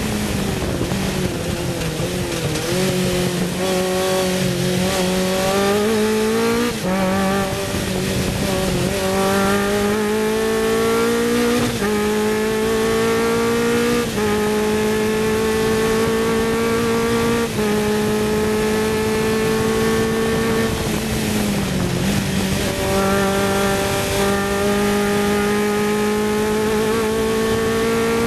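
Sports 2000 race car engine running hard at high revs, heard onboard at racing speed. The engine note holds high and steps up and down several times as the gears and throttle change, dipping and climbing again about three quarters of the way through.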